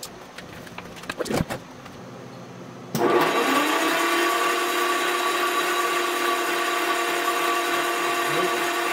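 Jaguar 2.4-litre inline-six engine being cranked over on its electric starter, which cuts in suddenly about three seconds in and runs with a steady whine. The oil relief valve has been plugged, and the cranking is to see whether oil pressure builds.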